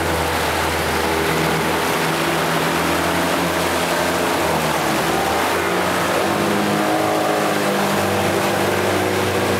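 Outboard motor on a small runabout running hard through a wheelie, a steady engine note whose pitch shifts a little about halfway through.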